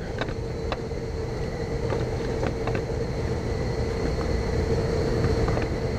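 Steady machine hum with a constant tone, and a few faint light clicks scattered through it.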